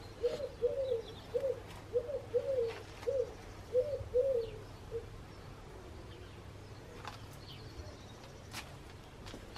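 A pigeon cooing: a run of about ten low, rounded coos that stops about halfway through.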